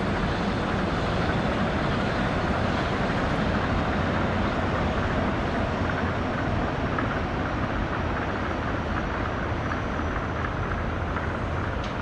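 Tokyo Monorail train running past on its elevated straddle-beam guideway: a steady rumble of rubber tyres and motors over city traffic noise, easing slightly near the end as it moves away.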